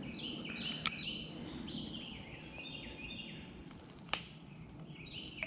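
Birds chirping: many short, high notes that each fall slightly in pitch, overlapping and repeating steadily, with two sharp clicks, one about a second in and one about four seconds in.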